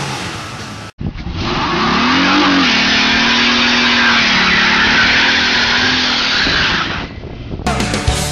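Pontiac Grand Am's 3.4 V6 held at high revs during a front-wheel burnout, the spinning front tyres squealing loudly over an engine note that rises and then holds steady. Rock music with electric guitar comes in near the end.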